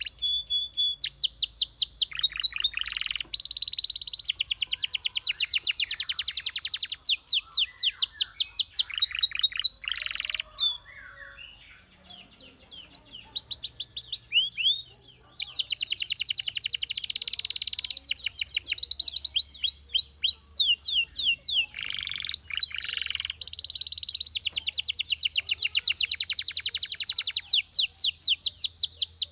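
Belgian canary singing: long runs of rapid, evenly repeated high trilled notes, changing from one trill to the next, with a pause of a second or two about a third of the way in and a shorter break later.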